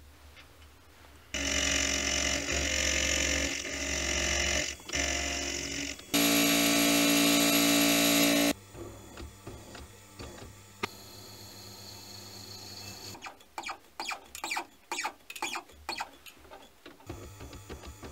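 Milling machine spindle running while a cutter works a brass block: a steady machining noise, then a louder ringing whine for a couple of seconds. After a quieter stretch comes a run of quick sharp clicks.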